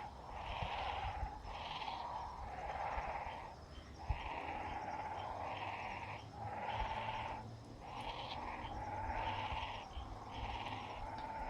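Nestling birds giving raspy, hissing begging calls, one after another about once a second.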